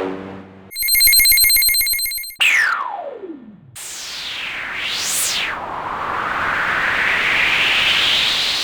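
A run of synthesized electronic sound effects: a fast buzzing ring-like tone starting about a second in, then a quick falling pitch sweep, then a long hissing sweep that swoops down and up before climbing slowly in pitch.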